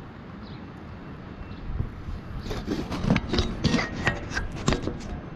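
Hand-handling noises: a run of about eight short, irregular rubbing and scraping knocks starting about halfway in, over a steady background hiss.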